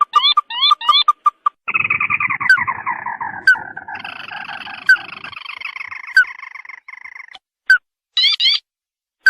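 Crake calls: a few quick rising whistled notes, then a long, falling, chattering trill with a second, higher trill joining partway through, and more rising notes near the end.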